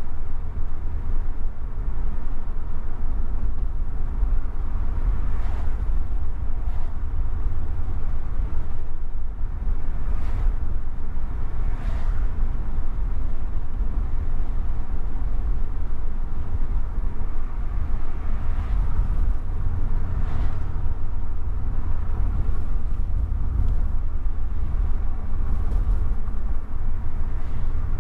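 Car driving along a road: a steady low rumble of engine and tyres, with a few faint swishes of traffic going by.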